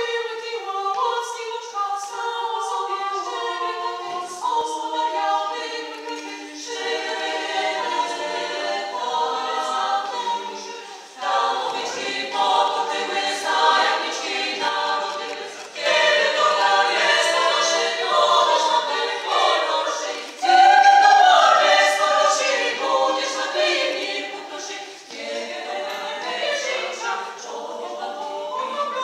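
Women's choir singing a Polish Christmas carol (kolęda) a cappella, in phrases with short breaks between them. The loudest passage comes a little past two-thirds of the way through.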